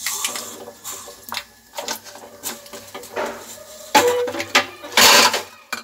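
Mustard seeds crackling and popping in hot oil in a small tempering pan, as irregular sharp pops and clicks, with a louder sizzling burst about five seconds in. Small bowls clink as they are handled.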